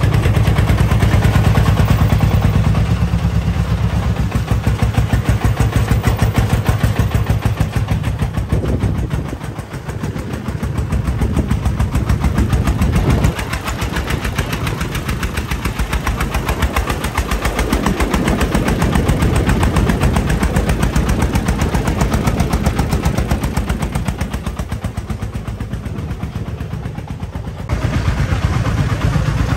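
Diesel engine of a sand-loaded công nông three-wheeled dump truck running under load with a rapid, even exhaust beat as it drives along. The loudness dips and swells a few times as it moves.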